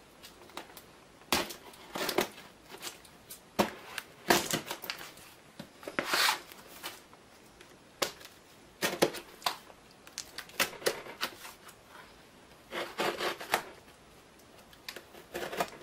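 A cardboard box being opened with scissors: the blades slit and scrape along the packing tape, with irregular clicks, knocks and short rustles of cardboard and tape being handled.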